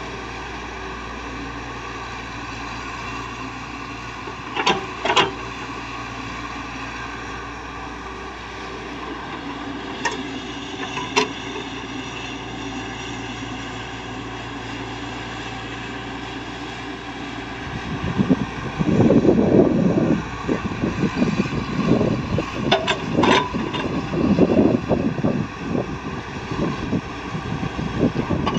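Heavy earthmoving machinery running with a steady engine drone and a few sharp metallic clanks. About two-thirds of the way through, a loud, irregular rumbling starts and goes on to the end.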